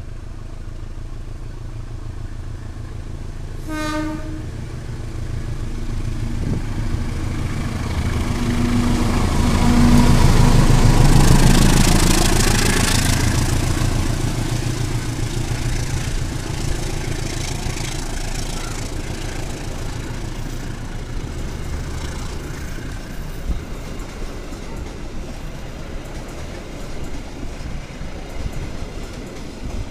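KAI passenger train hauled by a diesel locomotive approaching and passing close by. There is a short horn toot about four seconds in, and the locomotive is loudest about ten to thirteen seconds in. After that the coaches roll past with a steady clickety-clack of wheels over the rails.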